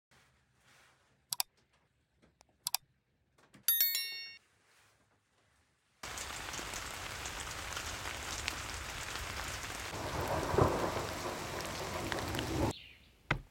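Steady heavy rain that starts suddenly, with a rumble of thunder swelling near the middle, then cuts off sharply. Before it come a few sharp knocks and a brief high ringing sound.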